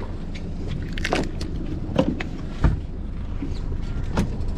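A few short knocks and clicks over a steady low rumble, the loudest a dull thump about two and a half seconds in.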